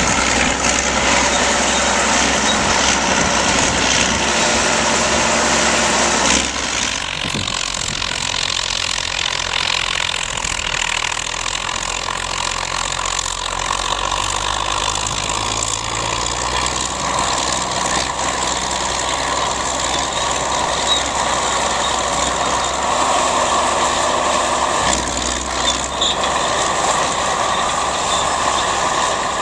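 Caterpillar D8 crawler dozer's diesel engine working steadily as it pushes dirt. The sound turns fainter about six seconds in and the low engine note grows strong again near the end.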